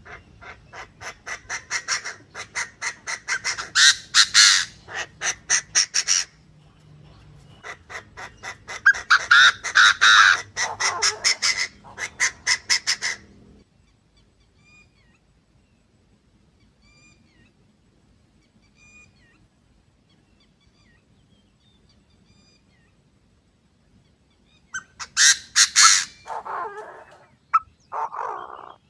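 Chinese francolin (đa đa) calls, male and female, as used for a trapping lure: fast trains of sharp repeated notes, about five a second, in two long loud bouts. A stretch of faint scattered chirps follows, then a shorter bout near the end.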